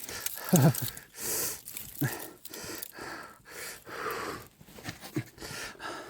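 A person breathing hard and wheezing in the cold, with irregular rasping breaths and a few brief voiced moans.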